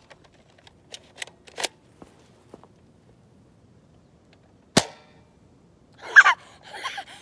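Nerf foam-dart blaster handled with a few light clicks, then fired once with a single sharp snap about five seconds in. Rustling follows near the end.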